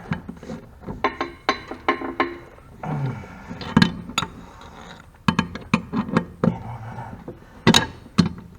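Socket wrench on the blade bolts of a riding mower as they are tightened: a run of sharp metallic clicks and clinks, irregular and coming in bunches of a few a second.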